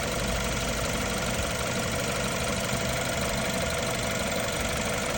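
BMW N20 2.0-litre turbo four-cylinder engine idling hot, with a steady light clicking and metallic rattle from the timing chain, which the owner takes for a stretched chain that needs replacing.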